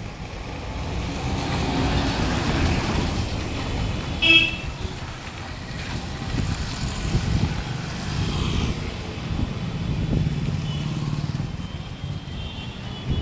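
Street traffic: motorcycle and scooter engines passing close and fading, with a short vehicle horn toot about four seconds in, the loudest sound.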